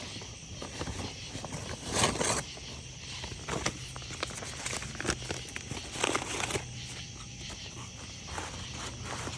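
Campfire crackling with scattered small pops and a few louder bursts of rustling noise, about two and six seconds in. Behind it is a steady high chirring of crickets and other night insects.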